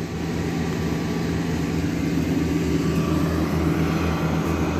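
Steady background drone of a running motor or engine: a low hum with an even throb beneath it.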